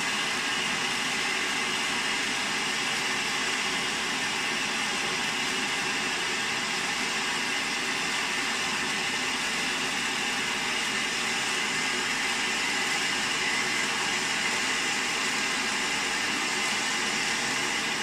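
FP 009 Silver fountain, a 60-second ground fountain firework, burning with a steady, even hiss as it sprays sparks.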